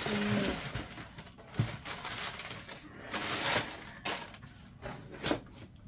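Handling noises from a shoebox and the hiking shoes being unpacked: paper and cardboard rustling, loudest about three seconds in, with a few light knocks and taps.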